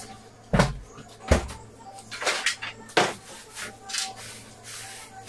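Kitchen clean-up clatter. There are two heavy thuds about half a second and a second and a half in, and a sharper knock about three seconds in, as things are handled and set down. Rustling and rubbing fill the gaps between them.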